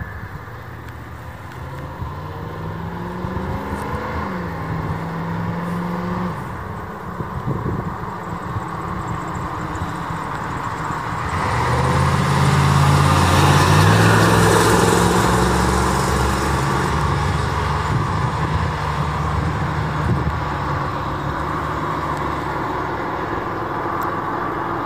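Ford rescue truck driving up and past, its engine rising in pitch a few seconds in as it pulls, then running steadily under load. Its engine and road noise are loudest about halfway through as it goes by, then ease off as it moves away.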